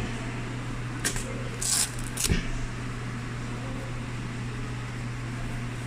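A few short rustling and handling noises from the sneaker unboxing, the loudest about two seconds in, with a soft thud, over a steady low hum.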